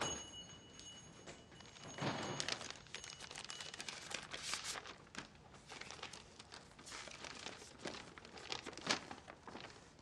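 Paper rustling and crinkling as a letter is opened and the folded sheet unfolded, with a louder rustle about two seconds in and a sharp crackle near the end.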